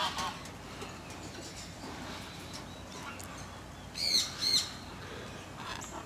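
Two short squawks from a parrot, each rising and falling in pitch, about four seconds in. A fainter call comes at the very start, against quiet background.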